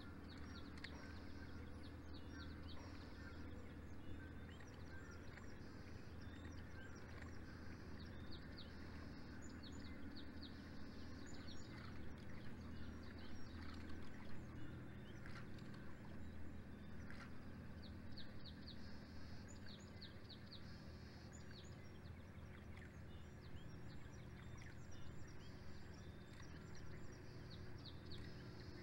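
Birds chirping in runs of quick, high, short calls, coming and going, over a steady low hum and outdoor background noise.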